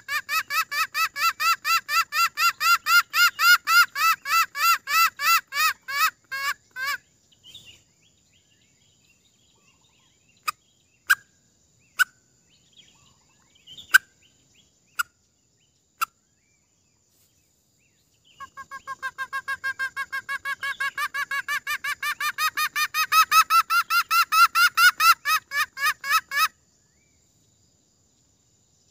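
Junglefowl lure call: a rapid, evenly spaced run of clucking notes that stops after about seven seconds. A few single clucks follow about a second apart, then a second long rapid run begins partway through and stops near the end.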